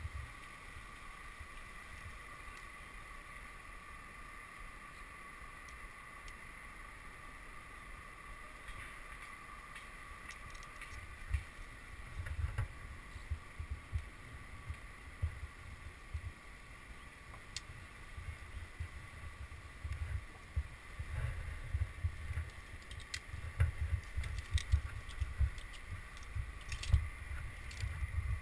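Low gusty rumbling buffets on a head-mounted camera's microphone, coming and going from about halfway through and strongest near the end, over a faint steady high whine. A few small metallic clicks of climbing hardware, a carabiner on the rope, sound in the last few seconds.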